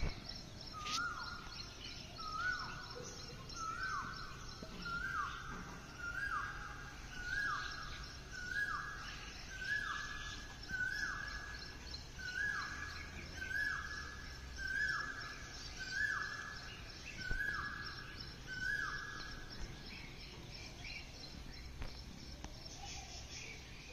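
Asian koel (koyal) calling: a long run of about twenty like-shaped notes, roughly one a second, that stops a few seconds before the end. Fainter chirps of other birds go on behind it.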